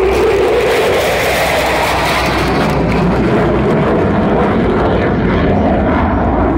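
F-16 fighter jet's single jet engine as the jet flies past overhead. A loud, rushing jet noise whose hissing top end is strongest a second or two in, then dulls as the jet draws away.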